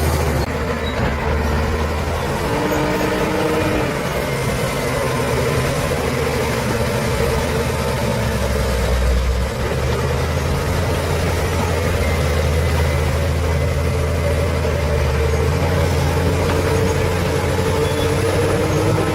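Bulldozer's diesel engine running steadily, a continuous low drone with slight shifts in pitch.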